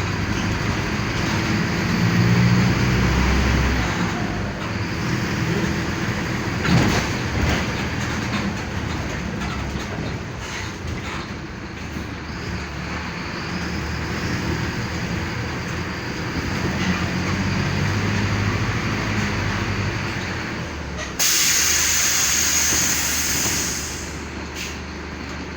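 Mercedes-Benz OF-1519 Bluetec 5 city bus's diesel engine running, heard from inside the cabin; its note swells twice as the bus pulls. Near the end a loud hiss of released compressed air from the bus's air system starts suddenly and lasts about three seconds.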